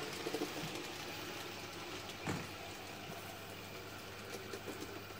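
Faint, steady running noise of an N-scale BR 50 model steam locomotive with a coreless motor hauling six coaches up a grade, with a low hum and a single click about two seconds in.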